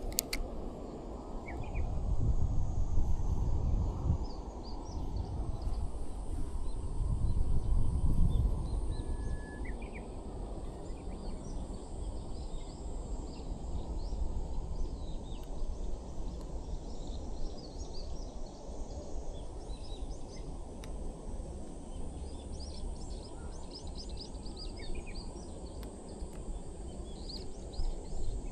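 Riverside outdoor ambience: a steady low rumbling noise that swells twice in the first ten seconds, with scattered short bird chirps throughout.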